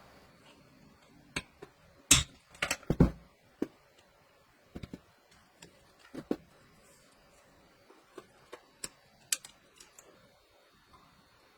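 Irregular clicks and light knocks of small parts and hardware being handled during machine assembly, with a cluster of louder knocks about two to three seconds in and scattered clicks after.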